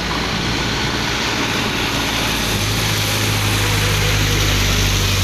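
Heavy tanker truck's engine running, a steady low hum that grows louder from about halfway through as the truck draws near.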